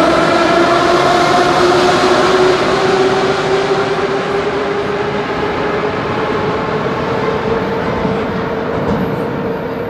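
81-717/714.5A metro train running, its traction drive whining with a pitch that rises slowly as the train gathers speed, over the rumble of the wheels. The sound slowly fades as the train moves away.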